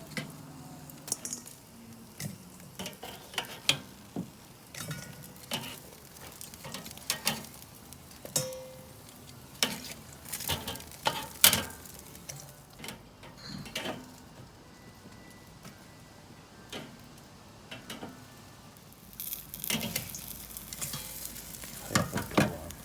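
Irregular sharp clicks and clinks as cooked chicken wings are lifted off a Weber kettle grill and dropped into bowls, over a steady sizzle from the hot grill. The clinking gets busier and noisier near the end.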